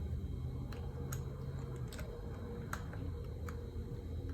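Light, irregular taps on a phone's touchscreen, about one a second, over a low steady hum.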